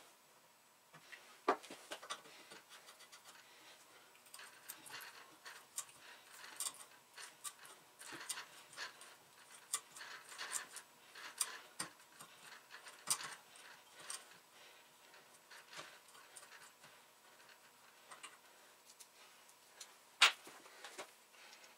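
Light, irregular metal clicks and scrapes of a tap turned by hand in a T-handle tap wrench, cutting a 1/4-20 thread in a metal part held in a bench vise. A sharper click comes near the end.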